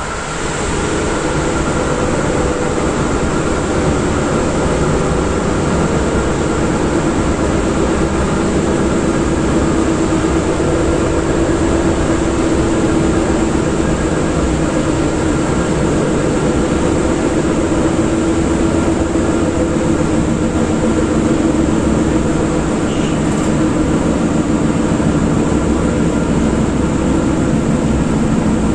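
Running noise inside the motor car of an EN57 electric multiple unit at speed: steady rumble of wheels on rail, with the hum of the traction motors and gearing underneath. It swells over the first couple of seconds, then holds even.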